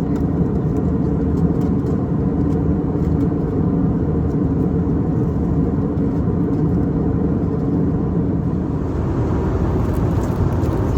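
Steady cabin noise of an Airbus A320 airliner in flight: a constant rumble of engines and airflow, with a few steady hums underneath.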